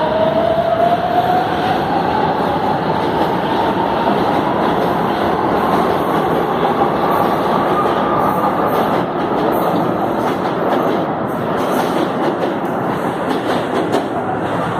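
Metro train pulling out at speed, its traction motors whining in a tone that rises steadily over the first eight seconds or so as it accelerates, over the rumble of the wheels on the rails and clacking at rail joints. A few sharp knocks come in the last few seconds.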